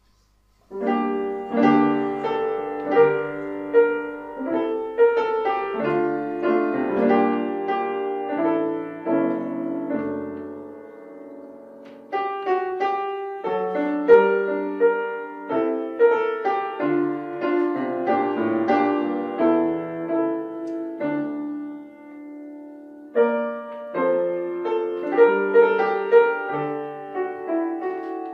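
Piano playing a slow chordal piece in phrases, starting about a second in, with short breaks between phrases about twelve and twenty-three seconds in.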